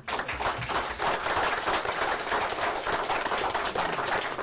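Applause from a small group of people, many hands clapping, beginning abruptly and keeping up a steady dense patter.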